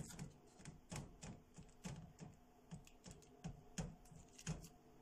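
Fingertips pressing and tapping the edges of a puff pastry sheet down against a metal baking tray: light, irregular taps and clicks, about two a second.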